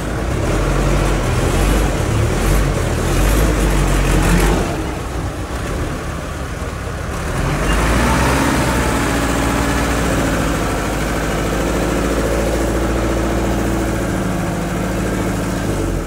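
Heavy diesel engine of earthmoving machinery running, loud for the first four and a half seconds, easing off briefly, then picking up again about eight seconds in and running steadily.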